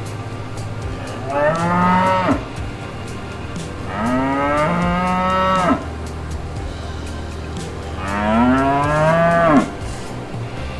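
A cow mooing three times, each long call rising in pitch and then falling away at its end.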